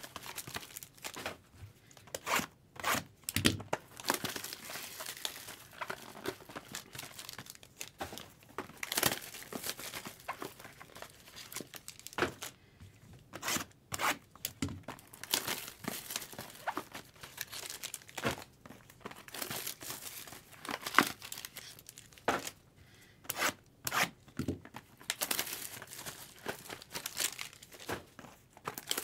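Packaging being handled at the table: irregular crinkling and rustling with scattered louder crackles.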